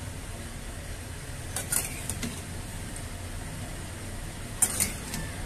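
Metal spatula clinking and scraping against a metal pan while stirring brinjal in curd gravy, in two short bursts, about a second and a half in and again near the end, over a low steady background hum.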